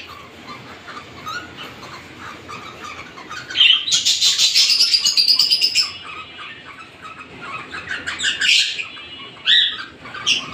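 Lutino cockatiels calling while a pair mates. A rapid, high chatter starts about four seconds in and lasts about two seconds, with two short loud calls near the end. Other small cage birds chirp faintly throughout.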